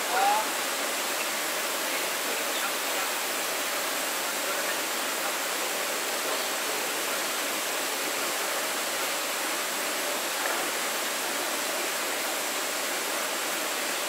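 Small waterfall pouring into a rock pool: a steady, even rush of falling water. A brief voice sounds right at the start.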